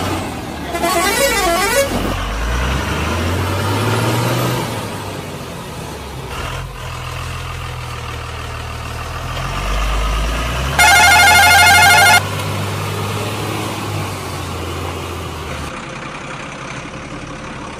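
Truck sound effects: a low engine drone that rises and falls in pitch throughout, broken by two short warbling horn blasts, about a second in and again about eleven seconds in, the second the loudest.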